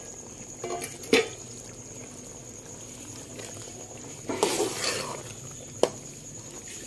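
Chicken masala simmering in yogurt liquid in a pot while a spoon stirs it, clinking sharply against the pot twice, with a longer scraping stir about four seconds in.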